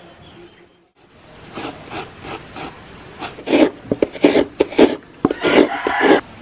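Coconut meat being grated from a half shell, a run of short rasping scrapes at about two to three strokes a second that get louder partway through.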